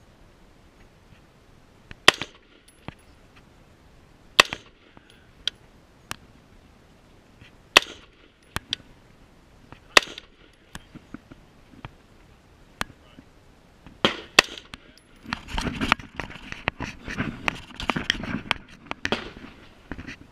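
Gunshots on a shooting range: sharp single cracks a few seconds apart, then a fast, dense string of shots for the last few seconds.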